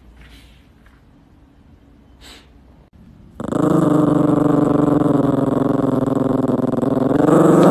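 Yorkshire terrier growling into a floor vent: one long, steady growl at an even pitch that starts about three and a half seconds in and holds for about four seconds.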